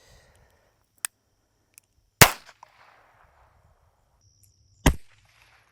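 Two pistol shots about two and a half seconds apart, each a sharp crack with a short ring-out, the first the louder. A lighter click comes about a second before the first shot.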